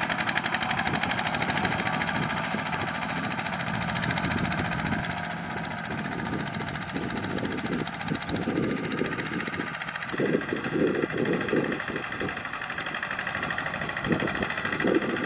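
Single-cylinder diesel engine of a Kubota RT120 walk-behind tractor chugging steadily under load as it pulls a disc plough through soil. Its tone shifts about ten seconds in.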